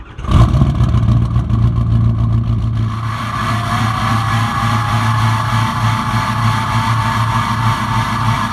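Ford 6.0 Power Stroke V8 turbodiesel firing up on a cold start and settling into idle through a 4-inch exhaust with a 6-inch tip, with a lope at idle from a missing number-one injector. From about three seconds in, a faint whine slowly rises in pitch.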